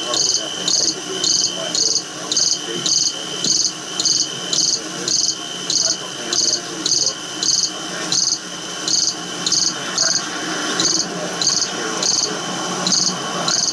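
Insects chirping in a steady, even rhythm, about one and a half short high chirps a second, over a fainter steady high tone.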